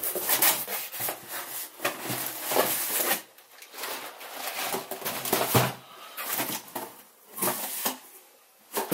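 Cardboard boxes and paper being handled: steady rustling and scraping for about three seconds, then a few separate rubs and knocks as a shoebox is lifted out of a cardboard shipping box.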